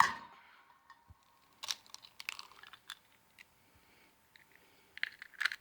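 Eggs being cracked by hand: a sharp knock with a short ring at the start, then scattered small cracks and crunches of eggshell being broken open and picked apart.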